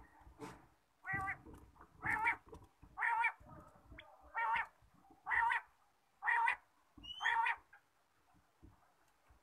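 A quail calling, a short wavering call repeated about once a second, seven times, with faint knocks between the calls.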